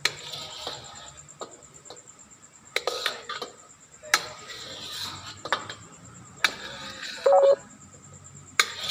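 Metal spatula scraping and knocking against a wok while the cooked food is dished out: about six sharp clacks, each followed by a short scrape across the pan. A brief ringing tone sounds a little past seven seconds in.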